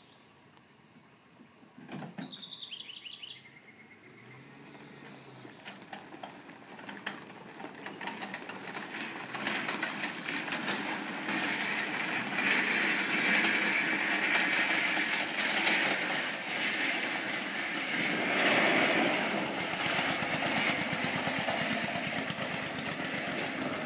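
Allis-Chalmers tractor engine, bump-started by being towed in gear, running with a rapid firing beat that grows louder as the tractor comes closer.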